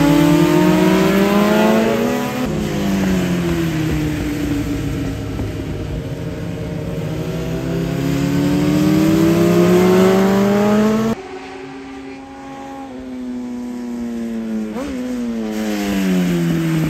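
Kawasaki Z1000J race bike's air-cooled inline-four under hard acceleration: the engine note climbs, dips at a gear change about two seconds in, then climbs again through a long pull. After a sudden drop in level, a quieter engine note falls away in pitch near the end as the bike goes past or slows.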